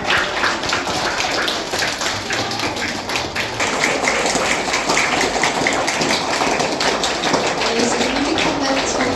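Audience of schoolchildren applauding: a dense, steady patter of many hands clapping, with faint voices underneath.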